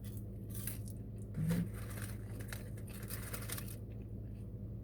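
Paper bag and cardboard food packaging rustling and crinkling in several short, irregular bursts as a meal is unwrapped, over a steady low hum. A brief vocal sound about one and a half seconds in.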